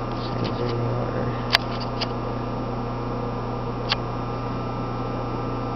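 Steady low electrical hum with three short, sharp clicks: camera handling as the camera is brought in to focus close up. One click comes about one and a half seconds in, another just after two seconds, and the last near four seconds.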